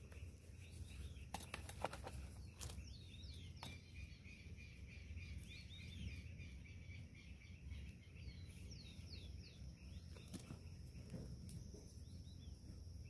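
Faint outdoor ambience: birds chirping in short falling calls and a steady high insect call that sets in a few seconds in. A hand tool knocks and scrapes in soil a few times, most around two seconds in and once more near ten seconds.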